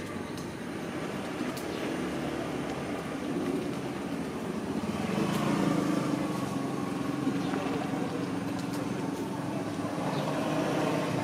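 A motor vehicle engine running with a steady low hum, growing louder about halfway through, over outdoor background noise.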